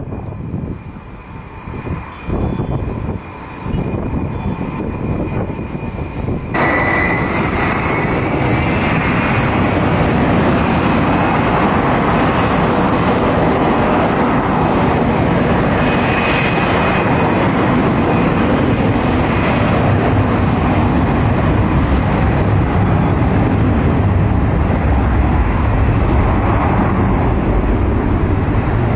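Ilyushin Il-76 cargo jet's four turbofan engines running: a steady turbine whine over a loud rushing roar. About six seconds in it turns abruptly louder and the whine rises a little in pitch, then holds steady.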